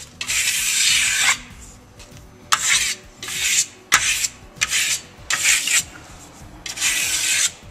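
Stainless steel trowel scraping across clay plaster in six firm strokes, the first and last longest, with one sharp click about four seconds in. This is hard-trowel compression of the finish: the steel is wearing down on the clay and leaving grey steel burn behind.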